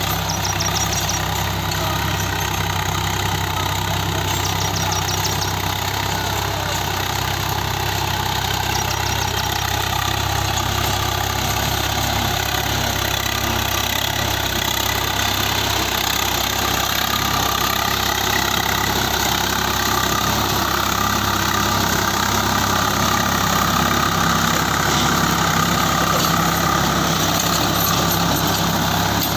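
Swaraj 855 FE tractor's three-cylinder diesel engine running steadily under load as it pulls a gear-drive rotavator. The rotavator's blades churn through the soil and weeds, and the sound grows a little louder in the second half.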